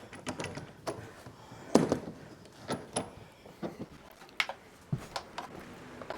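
Scattered light knocks and clinks of tools and wood being handled at a workbench, the loudest about two seconds in.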